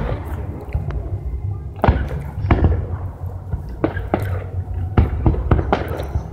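Aerial fireworks shells bursting: an irregular string of about eight or nine sharp bangs, some close together, over a steady low rumble.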